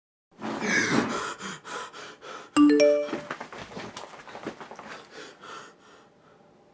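Music with busy, fast percussion. About two and a half seconds in comes a bright chime of three quick rising notes, and the music fades out near the end.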